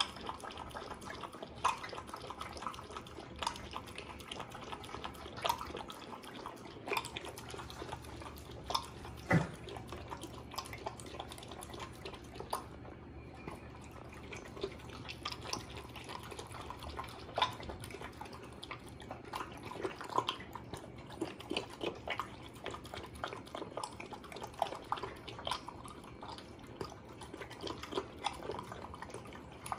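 A small dog eating wet food from a stainless steel bowl: irregular wet lapping, slurping and chewing of chicken and chayote in broth, with a short lull about halfway through.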